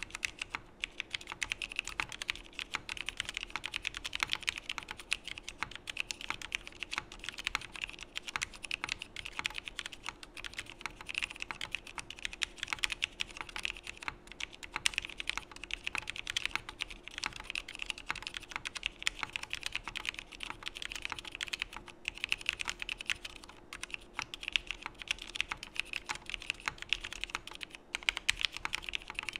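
Continuous fast typing on a Geonworks Frog mechanical keyboard with vintage 1990 Cherry MX Black linear switches, their stems lubed with Krytox 205g0, mounted in an aluminum plate with no foam or dampening: a steady stream of keystrokes bottoming out.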